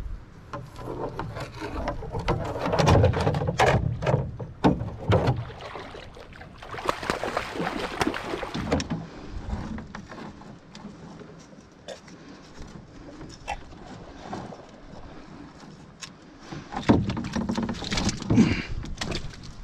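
Clunks and knocks against a canoe hull with some water splashing as a shot carp is brought aboard and handled on the canoe floor. A louder run of knocks comes near the end.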